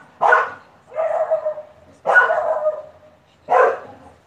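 Old English bulldogs barking loudly: four barks, the middle two longer and drawn out.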